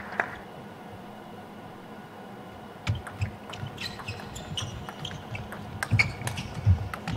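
After a quiet pause, a table tennis rally starts about three seconds in: the celluloid-type plastic ball clicks sharply and irregularly off the rackets and the table. Several low thuds of the players' footwork on the court floor are mixed in.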